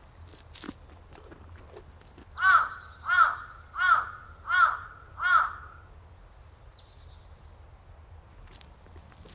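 A bird gives five loud calls in a row, about two-thirds of a second apart. A faint, high, falling trill from a songbird comes before and after them.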